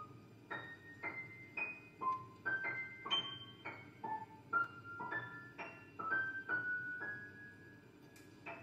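Upright piano playing sparse single high notes, one or two a second, each struck and left to ring briefly, at an uneven, halting pace. The notes thin out near the end, with one longer held note before a last faint one.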